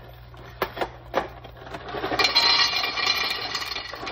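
A few light knocks, then about two seconds of dry pasta poured from its box and rattling into a dish.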